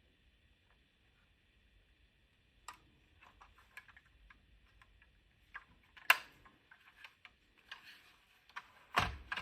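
Small hard objects being handled: scattered light clicks and taps, starting a few seconds in, with a sharp click about six seconds in and a heavier knock near the end, typical of a plastic-and-metal scale model car and its packaging being handled.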